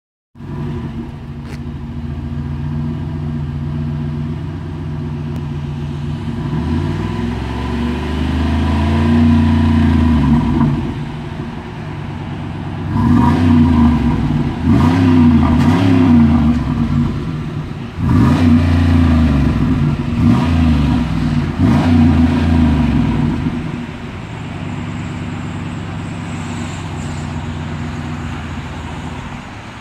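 2007 Chevrolet Monte Carlo SS 5.3-litre V8 through its stock dual exhaust, idling, then revved up slowly and held for a few seconds. It then gets a string of about eight quick throttle blips, each rising and falling, before settling back to a steady idle near the end.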